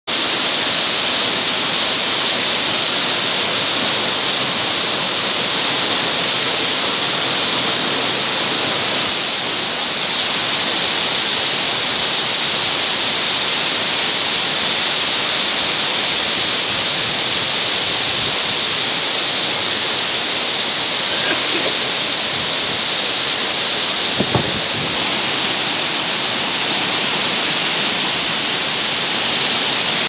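Waterfall in full flow, water pouring over rock ledges in a steady, unbroken hiss-like rush.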